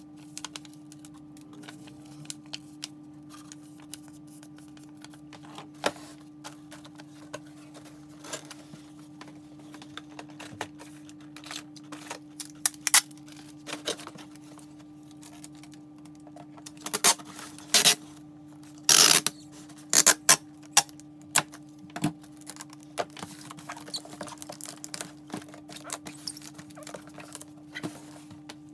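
Packaging being handled by hand: irregular rustles and clicks, with a cluster of louder ones about two-thirds of the way through, over a steady low hum.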